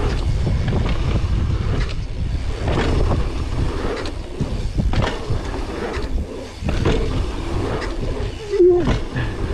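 Mountain bike riding down a dirt trail, heard from a camera on the rider: wind rumbling on the microphone, tyres running over dirt, and knocks and rattles of the bike over bumps. A brief voice cuts in near the end.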